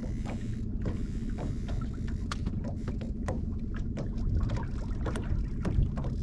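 A small fishing boat under way at trolling speed: a steady low motor rumble, with irregular short clicks and knocks throughout.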